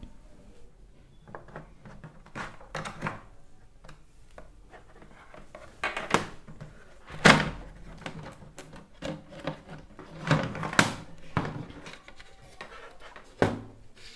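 Irregular knocks and thuds of hard objects being handled and set down, about a dozen separate strikes, the loudest about seven seconds in and again about ten to eleven seconds in.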